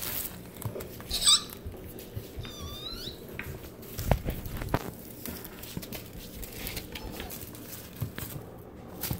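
A kitten pawing and batting at crinkly foil ribbon on a wooden floor, with rustling throughout. Two short, high squeaks with wavering pitch come about a second in and near three seconds, and two knocks come around four seconds in.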